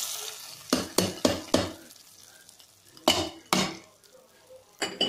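Hot oil tempering sizzling briefly as it meets the adai batter, dying away within the first half second. Then a metal spoon stirs it in, knocking and scraping against the metal bowl: four sharp clinks in the first two seconds and two more about three seconds in.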